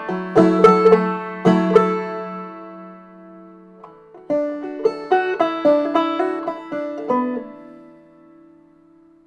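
Solo banjo being picked in two short phrases, with a gap of about a second between them; the last notes ring out and fade near the end.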